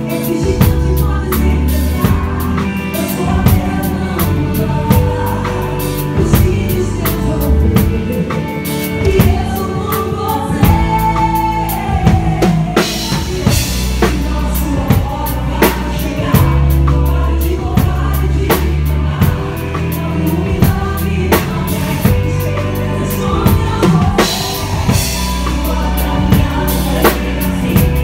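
Acoustic drum kit played live with a band, the drums loudest: kick drum, snare and hi-hat keeping the beat under a steady bass and other instruments, with cymbal crashes now and then.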